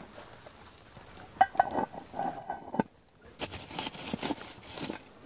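Sharp metallic clinks of a cast iron cooker lid and its lifter, about a second and a half in. These are followed by irregular scraping and rustling as the lid, heaped with hot coals, is moved over the fire bed.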